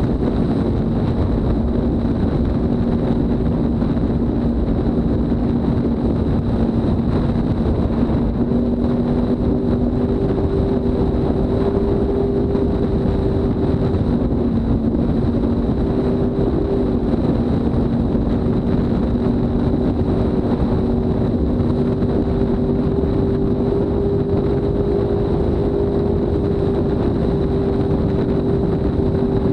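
Mercury Racing 300R Heavy Duty V8 outboard running steadily at high speed, its even engine note held under a loud rush of wind and water.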